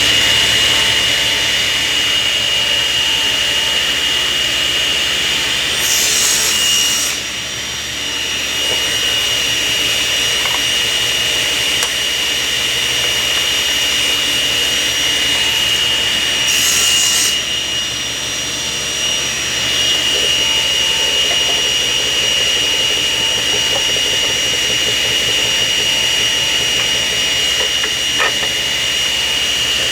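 Table saw running with a steady high-pitched whine, cutting through a wooden board twice, about six seconds in and again around sixteen seconds, each cut adding a brief rasping hiss.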